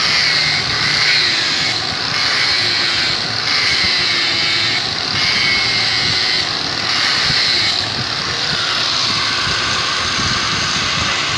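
Steady machine noise: a loud hiss with a high whine running through it and faint irregular pulses, typical of workshop machinery running.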